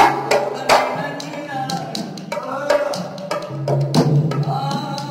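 Puppet-show music: hand-drum strikes with a wavering melody line above them.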